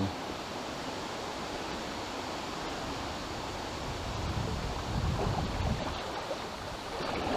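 Small river flowing with a steady rushing noise, with wind buffeting the microphone in low gusts from about four seconds in.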